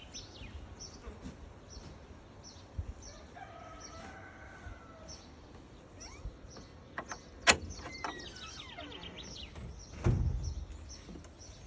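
Birds chirping with short, high calls repeated all through. A longer, drawn-out lower call comes about four seconds in. A sharp click sounds about halfway through, and a low thump near the end.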